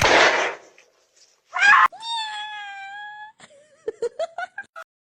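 Cat meowing: one long, steady meow, then a quick run of about eight short chirping calls.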